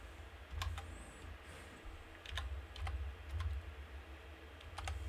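Typing on a computer keyboard: a few separate, unevenly spaced keystrokes over a faint low rumble.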